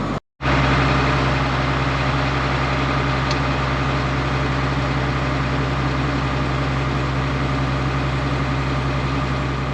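Farm tractor's diesel engine running at a steady speed, with a constant low hum. It comes in abruptly just after the start.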